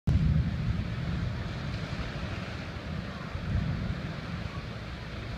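Wind buffeting the microphone with a low, gusting rumble, over a steady hiss of surf on the beach.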